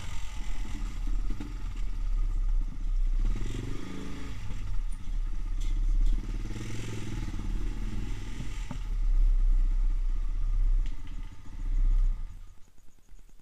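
Motorcycle engine running at low speed with rattling from the bike and mount, heard through a vehicle-mounted action camera. The sound drops away about twelve seconds in as the bike comes to a stop.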